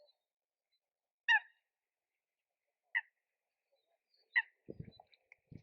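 An animal's short, clipped call, repeated three times about a second and a half apart. Faint low thumps come near the end.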